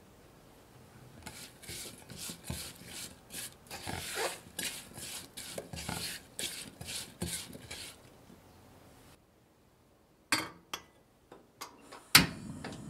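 A spoon stirring sugared chopped strawberries in a small white saucepan, scraping the pan in rhythmic strokes about twice a second for several seconds. After a pause come a few sharp clicks and knocks, the loudest near the end, as the pan is handled on a portable gas stove.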